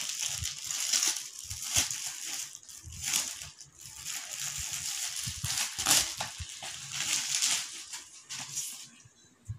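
Plastic wrapping crinkling and rustling in irregular bursts as a package is handled and opened, quietening near the end.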